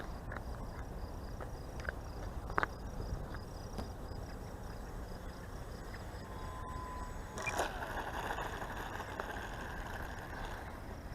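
Wind rumbling on the microphone with a rapid, regular insect chirp in the first half; about seven and a half seconds in, a steadier high whine comes in, the electric motor of a small RC model plane flying.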